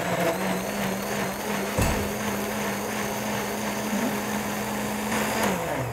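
Countertop blender running steadily, puréeing roasted beets with water into a smooth liquid, with a low bump about two seconds in; near the end the motor is switched off and winds down.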